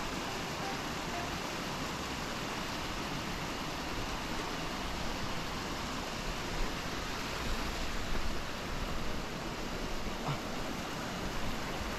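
Small stream rushing over rocks: a steady wash of water noise, a little uneven in the second half.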